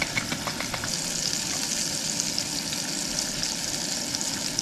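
Striped bass fillet sizzling in hot oil in a cast-iron skillet on a camp stove: quick crackling pops for about the first second, then a steady hiss.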